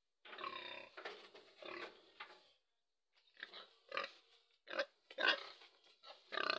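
A pig grunting: a string of short calls with a pause about halfway through, the later ones sharper and louder.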